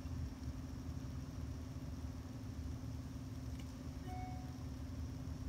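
Steady low mechanical hum with a constant low tone, with a few faint light taps.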